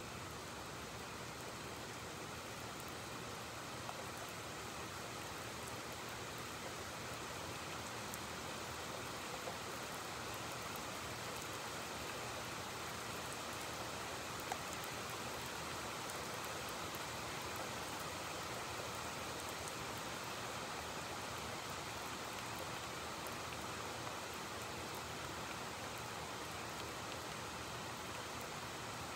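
Rain falling steadily, an even hiss, with a few faint ticks of drops.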